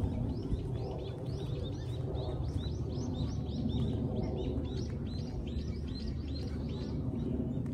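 Small birds chirping, many quick down-sweeping chirps overlapping through most of the stretch, over a steady low background rumble.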